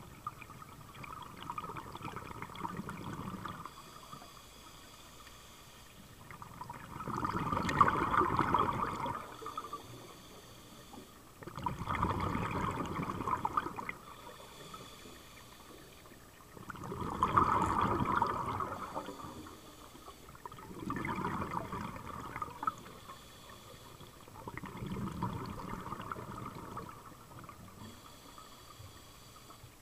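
Scuba diver breathing through a regulator underwater: bursts of exhaled bubbles about every four to five seconds, with a quieter hiss between them.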